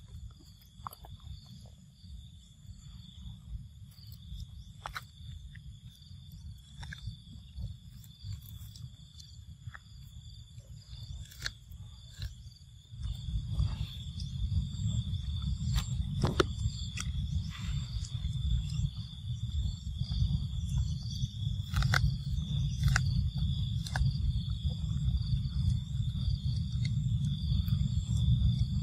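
A steady high insect drone with pulsing chirring above it, over a low rumble that gets clearly louder about halfway through. Scattered small clicks and crunches come from monkeys chewing corn kernels.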